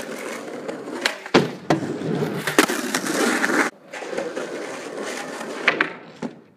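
Skateboard wheels rolling on an asphalt driveway, broken by several sharp clacks of the board popping and landing as tricks are tried. The rolling stops briefly about halfway through, then picks up again.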